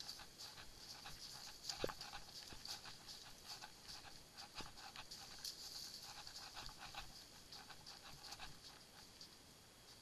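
Faint, irregular crunching and clicking from a horse being ridden at a walk over frozen leaf litter and snow, heard from the rider's helmet. One sharper knock comes about two seconds in.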